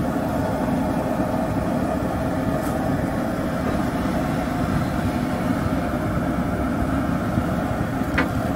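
Outdoor propane burner running under a wok with a steady rushing noise, the water in the wok at a rolling boil.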